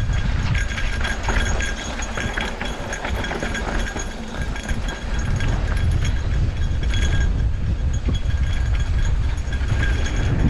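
Mountain bike rolling fast down a dry dirt singletrack: a heavy low rumble of wind and tyre noise on the microphone, with constant clattering and rattling from the bike jolting over the rough trail.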